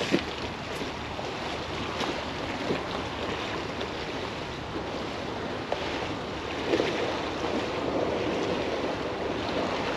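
Wind on the microphone over high-tide water washing and lapping against the bank, a steady rushing noise that grows a little louder about seven seconds in.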